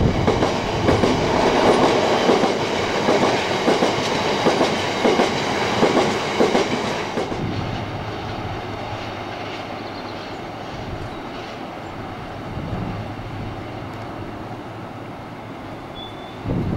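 Freight train of covered biomass hopper wagons running past, the wheels clicking over the rail joints. About seven seconds in the sound cuts abruptly to the train heard much fainter as it draws away.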